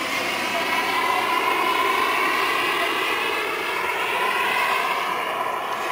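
Turbine-powered radio-controlled scale Hughes 500 model helicopter in flight. Its small gas turbine gives a steady whine over the rotor noise, the pitch drifting slightly up and then back down as it passes.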